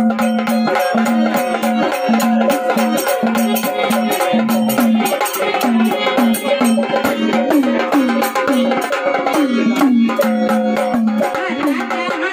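Instrumental stretch of a Marathi devotional folk song: a steady drone and melody over hand drums and rattles keeping a quick, even rhythm.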